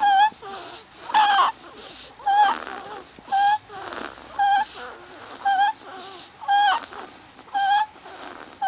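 A sleeping baby giving a short, high squeak with each breath, about once a second, each squeak much the same as the last.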